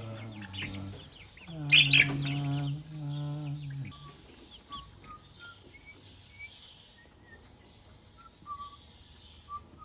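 Laying hens calling: two long drawn-out calls with a loud squawk about two seconds in, then faint short high chirps.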